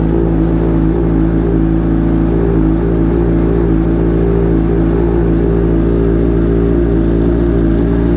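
Kawasaki Ninja H2's supercharged inline-four idling steadily just after a cold start, through a newly fitted Vandemon aftermarket exhaust.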